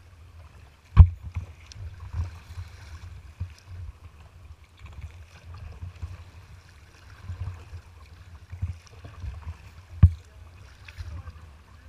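Choppy water slapping against a kayak's hull, with a steady low wind rumble on the microphone. Two hard thumps, about a second in and near the end, as the bow smacks into the waves.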